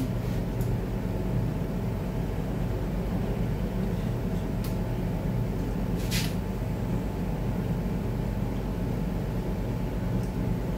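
Steady low mechanical hum, with a faint click about four and a half seconds in and a brief sharp hiss-like noise about six seconds in.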